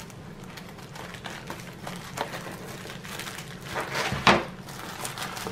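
Scissors snipping open a plastic bubble mailer, with faint rustling of the plastic. About four seconds in, a short, louder crinkling clatter as the mailer is gripped and lifted.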